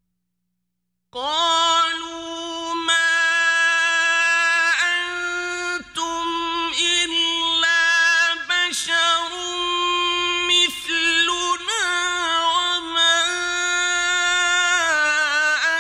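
Male Quran reciter chanting in a melodic, drawn-out recitation style. After about a second of silence, the voice holds long, high notes with small ornamental turns.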